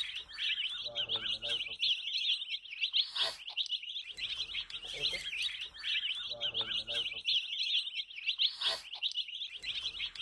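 Chicken chicks peeping rapidly and without pause, many high, down-slurred peeps overlapping, with quieter lower sounds beneath. Twice there is a brief rushing sweep, and the whole pattern repeats about every five and a half seconds, like a looped track.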